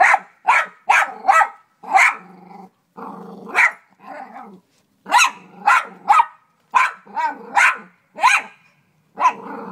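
Dog barking in a run of about fourteen sharp barks, one or two a second, with a low growl between the barks around two to four seconds in.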